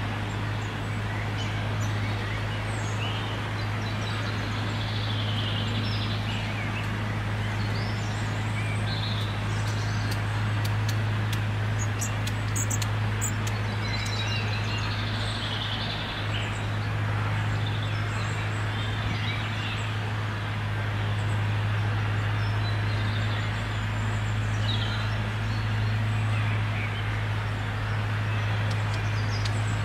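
Small birds chirping, with short high calls scattered throughout and a run of quick ticks about halfway through, over a steady low hum.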